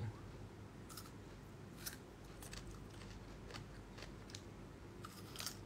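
Faint, irregular crunchy clicks of a person biting and chewing close to the microphone, with a few quick clicks together near the end.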